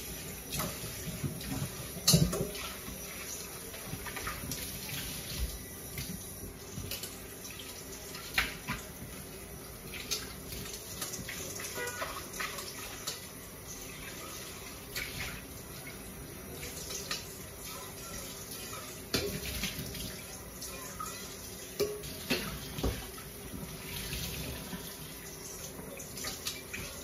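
Kitchen tap running into a stainless-steel bowl in the sink while hands rinse under the stream, with occasional knocks and clatter, the sharpest about two seconds in.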